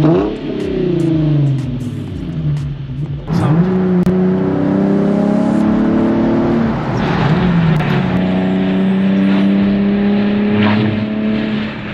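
Nissan 350Z Nismo's 3.5-litre V6 under way. Its note falls off over the first three seconds, then the engine pulls hard and rises in pitch, drops at an upshift about seven seconds in, and climbs again in the next gear.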